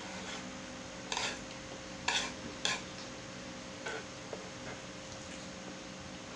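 Chopsticks stirring and picking through instant pancit canton noodles on a wooden board, making a few short scrapes and clicks about one, two and four seconds in. A faint steady hum runs underneath.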